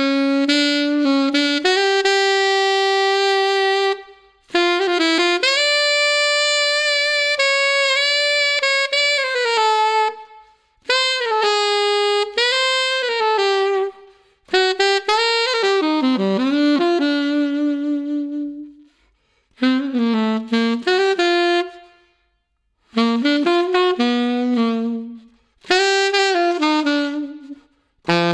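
Yanagisawa WO33 alto saxophone fitted with a bronze KZ neck, played unaccompanied: a melody in about seven phrases, with short breath pauses between them.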